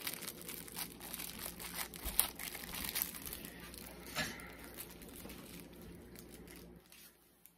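Candy wrapper crinkling and tearing as it is worked open by hand, a run of sharp crackles, loudest about two and four seconds in, dying away near the end.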